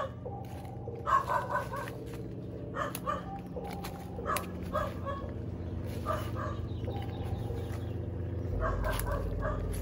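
Short pitched animal calls, repeated every second or so, over a steady low hum.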